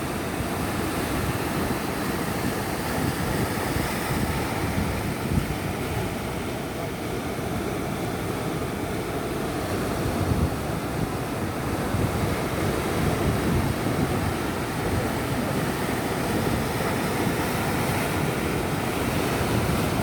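Ocean surf: waves breaking and washing in a steady, continuous rush, with wind rumbling on the microphone.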